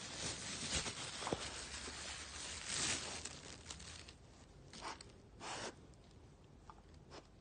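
Plastic pickle wrapper rustling and tearing as the pickle is worked out of it, busiest in the first three seconds, then two short rips about five seconds in.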